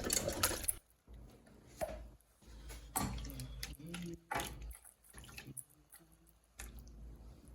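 Scattered clicks and knocks with dripping and splashing water, the sounds of kitchen work with wet food and utensils, coming and going with short pauses.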